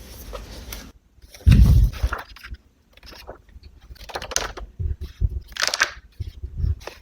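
Paper and journaling supplies being handled on a desk, as in laying out a collage page: rustling and scraping with small taps, and a heavier thump about one and a half seconds in.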